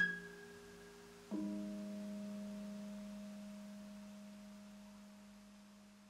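The last notes of a Javanese gamelan ensemble and a high suling flute tone fade out, then about a second in a single stroke on the gong kemodhong rings low and decays slowly: the closing gong of the piece.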